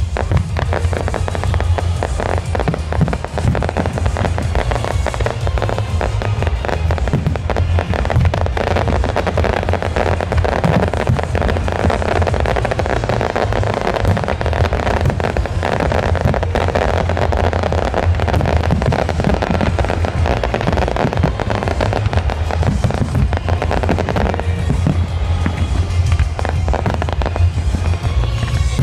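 Fireworks display: a dense, continuous run of bangs and crackling from bursting aerial shells, with a deep rumble beneath, over loud music.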